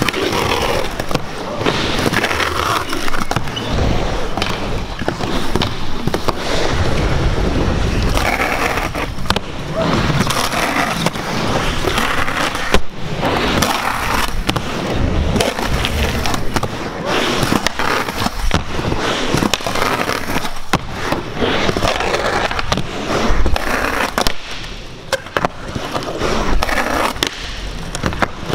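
Skateboard wheels rolling over a concrete skatepark floor, with repeated sharp clacks of pops and landings and the board grinding and sliding along a painted concrete curb. One landing about 13 s in is the loudest hit.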